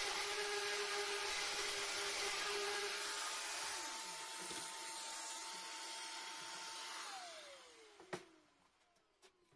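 Electric orbital sander with 80-grit paper running against the metal top of a steel cabinet, then off the work and switched off about seven seconds in, its motor whine falling as it spins down. A single sharp knock follows about a second later.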